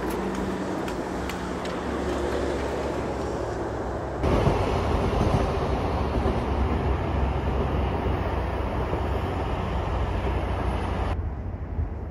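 A KTX train passing along the coastal railway: a steady rumble comes in suddenly about four seconds in and cuts off near the end. Before it there is only outdoor ambience.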